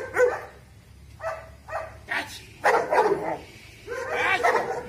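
Dog barking repeatedly in quick runs of short, loud barks, the agitated barking of a dog being worked up in guard-dog training.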